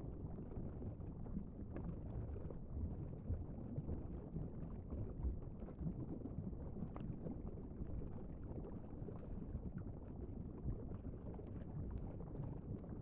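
Steady low rumbling sea ambience, with faint scattered clicks and ticks.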